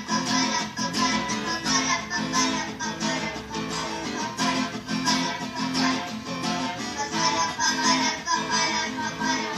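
Acoustic guitar strummed in a steady, repeating rhythm, playing the song's accompaniment.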